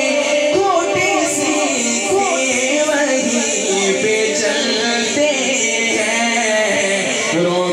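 Male naat reciter singing a devotional naat into a handheld microphone, his voice amplified, with long held notes and winding turns of pitch.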